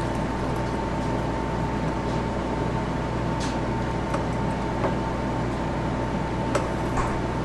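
Thin stream of sugar syrup trickling from a tilted metal tray into a stainless steel saucepan, faint under a steady background hum with a thin high whine. A few light clicks.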